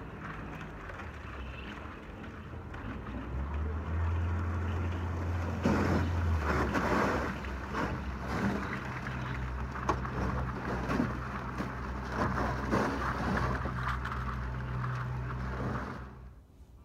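Small boat's motor running with a steady low hum while the hull breaks through thin ice, the ice crackling and crunching against it in a dense stream of small cracks.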